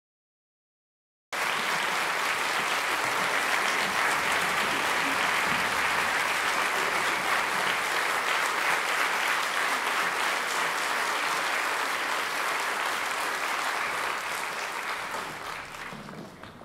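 Audience applauding: dense, steady clapping that starts suddenly about a second in and fades away near the end.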